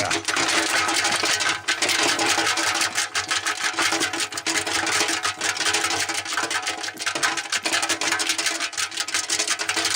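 Honda CL350 steel fuel tank being shaken, loose rust and scale rattling rapidly and continuously inside it as the debris is knocked loose.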